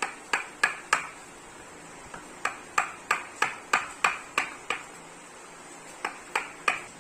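Hammer blows in three runs, four, then eight, then three, at about three strikes a second, each a sharp knock with a short ring.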